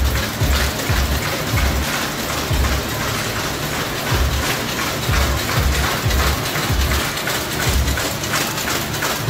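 Flowmaster mail inserter with an SF1 feeder/accumulator/folder running: steady mechanical clatter and clicking from the feed and insert mechanisms, with a low thump repeating a little over once a second as it cycles.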